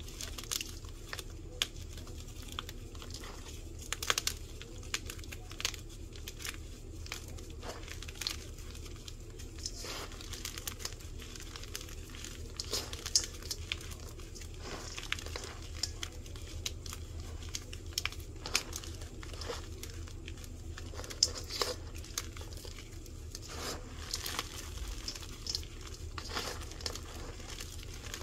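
Dyed baking soda blocks crushed and crumbled by hand: irregular crisp crunches and crackles as chunks break, with softer gritty crumbling of powder rubbed between the fingers in between.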